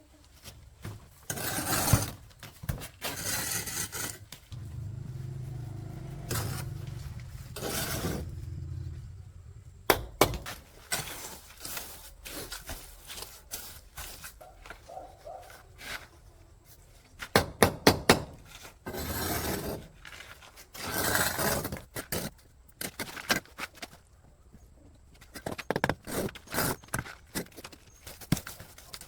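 Objects being handled by hand: irregular scraping, clinks and knocks, with a quick cluster of sharp clinks a little past the middle.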